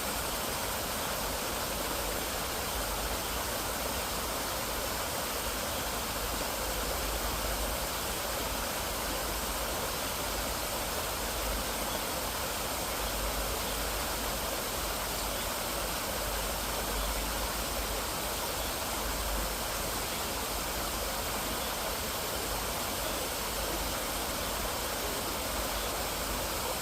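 Mountain stream water rushing and splashing over rocks, a steady, unbroken flow.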